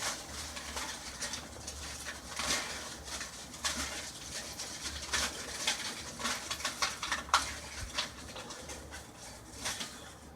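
Styrofoam cups rustling, clattering and creaking against each other as a pet bird rummages and plays in a bin full of them, in irregular bursts of light clicks and scrapes.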